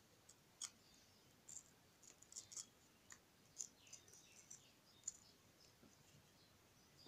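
Faint crisp clicks and scrapes of a small carving knife cutting into watermelon flesh and rind, as the blade scoops out wedges between the carved petals. A soft knock comes at the very end.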